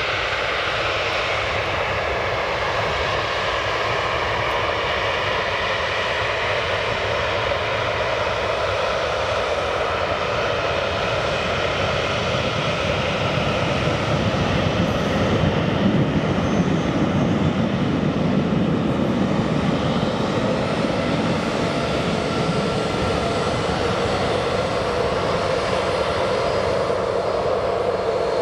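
Boeing 737-800's CFM56-7B turbofan engines running at taxi power as the jet rolls past on the ground: a steady whine with several held tones over a low rumble. It grows a little louder and deeper about halfway through.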